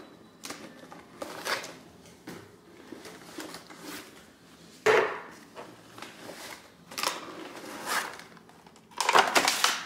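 Groceries being handled and set down on a kitchen countertop: plastic food tubs and a glass jar knocking onto the counter, with light rustling. The sound is a series of separate knocks, the loudest about five seconds in, and a longer rustle near the end.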